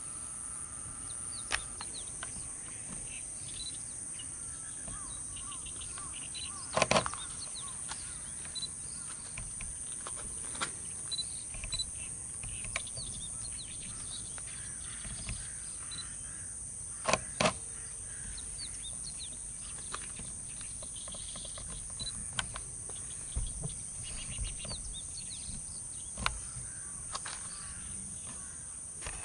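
Steady high-pitched insect drone with faint bird chirps over it. There are scattered small clicks, and sharp knocks about seven seconds in and again a little after seventeen seconds.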